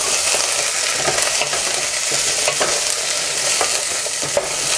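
Onion, ginger and garlic sizzling in hot oil in a pan while being stirred, with the spoon scraping the pan every second or so.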